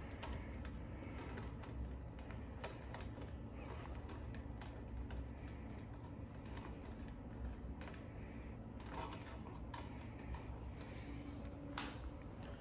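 Faint small clicks and rustling of hands unscrewing an e-bike's motor cable connector, with a few sharper clicks in the second half.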